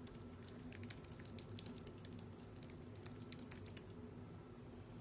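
Faint typing on a keyboard: quick, irregular clicks several a second that thin out near the end, over a low steady room hum.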